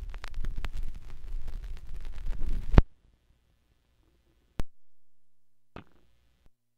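Vinyl record surface noise between tracks: dense crackle and clicks over a low rumble. It cuts off abruptly with a loud click about three seconds in, leaving near silence broken by a couple of isolated clicks.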